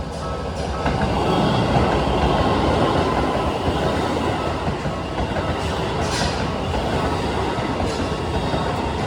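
Electric commuter train passing over a level crossing, a steady rush of wheel and running noise that swells about a second in and stays loud. The crossing's warning bell is heard at the start before the train drowns it.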